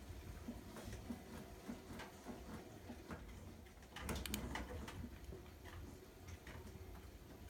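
Front-loading washing machine drum turning slowly with wet laundry in the rinse water: a low rumble with steady light ticking, and a short cluster of sharper clicks about four seconds in.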